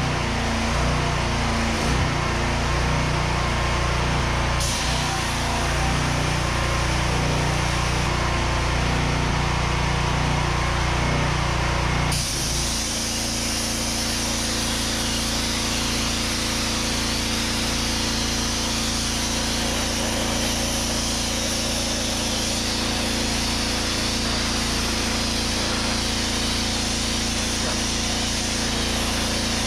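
Petrol pressure washer with a 13-horsepower engine running steadily; about twelve seconds in the gun is triggered and a loud steady hiss of the water-and-sand jet from the wet sandblasting attachment joins it, with the engine settling under load as the jet blasts rust and paint off a metal part.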